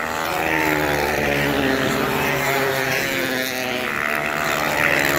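Several studded motocross race bikes running at full throttle on an ice track, their engines overlapping and wavering up and down in pitch, growing louder in the first half second as the pack approaches.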